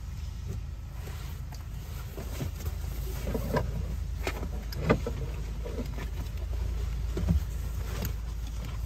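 Knocks and rustling of sleeping mats and bedding being laid out in a car's cargo area, over a steady low hum. The loudest knocks come about three and a half, five and seven seconds in.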